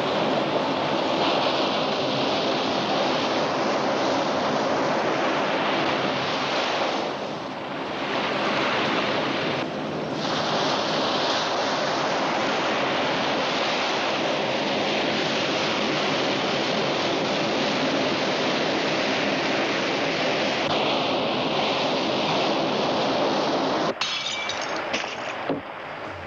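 Steady rushing noise with a faint low hum beneath it, dipping briefly twice; it changes abruptly with a few clicks near the end.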